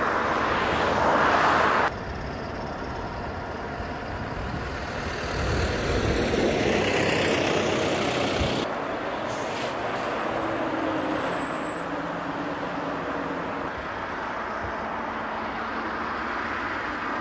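Farm tractor engines running as a slow convoy of tractors drives along the road, then steady road traffic of lorries and cars. The sound changes abruptly a couple of times as the shot changes.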